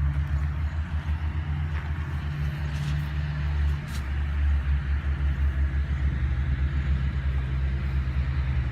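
An engine running steadily with a low drone that shifts slightly about four seconds in.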